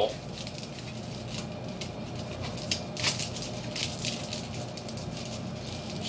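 Flexible foil dryer vent tubing crinkling in the hands as it is eased onto a coupling fitting: scattered light crackles, with a sharper one about three seconds in, over a faint steady low hum.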